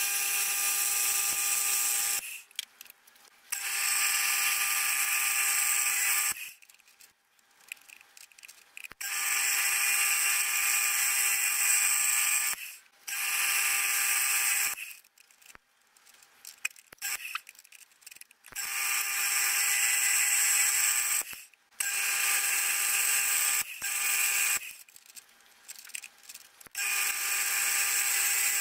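Milling machine spindle running as it drills holes in clamped metal cover plates, played back eight times fast so it comes out as a high-pitched buzzing whine. It sounds in several stretches of a few seconds each, separated by short quiet gaps.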